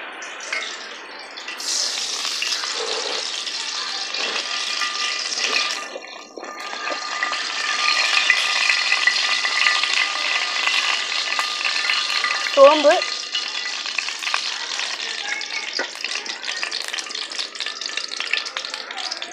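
Cooking oil sizzling and crackling steadily in a steel kadai over a wood fire. Fennel seeds go in partway through and fry in the hot oil.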